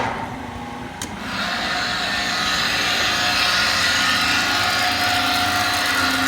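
Hardinge DSM 59R super precision turret lathe switched on and running: the motor starts suddenly, a click comes about a second in, and then the machine runs louder with a steady whir and hiss.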